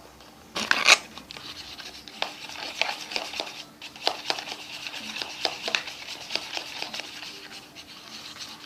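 Liquid dish soap and shampoo being handled in a plastic container for slime. A loud crackling squelch comes about a second in, then a long run of small irregular clicks and squishes.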